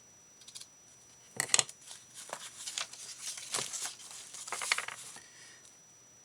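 Craft supplies being handled: a series of rustles and small clicks and taps from paper and trim, with a sharp click about a second and a half in.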